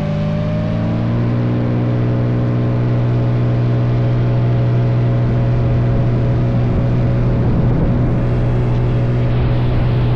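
Kitfox light aircraft engine and propeller opening up to takeoff power: the engine note rises in pitch over the first second, then holds a steady full-power drone.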